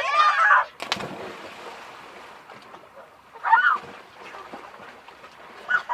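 A sudden splash about a second in, as of a body plunging into water, then churning water that fades over a couple of seconds; a short shout comes midway.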